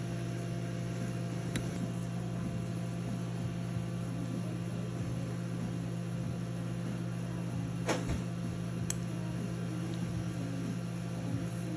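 Steady low hum of equipment or ventilation in a small room, with a few faint clicks about a second and a half in and twice near 8 to 9 seconds.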